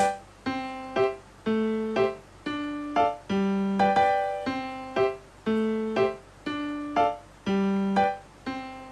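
Background music: a piano-like keyboard melody at a steady pace, about two notes a second.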